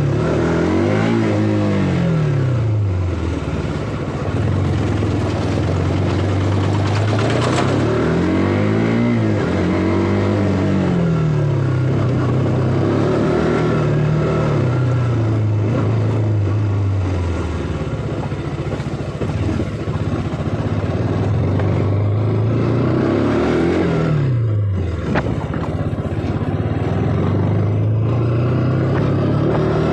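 KTM RC 200's single-cylinder engine and stock exhaust under way, recorded close to the exhaust. The revs climb and fall several times as the bike accelerates and eases off, with a sharp drop in pitch a little before the end.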